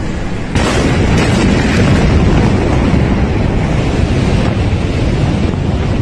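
Loud, unbroken rumbling roar of the Beirut port ammonium nitrate explosion heard through a phone microphone, stepping up louder about half a second in.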